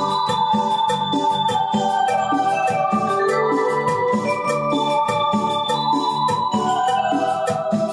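Yamaha PSR-340 portable keyboard playing a cumbia sureña accompaniment rhythm, a steady drum beat with a repeating bass line, under a hand-played lead melody of held notes that steps gradually downward.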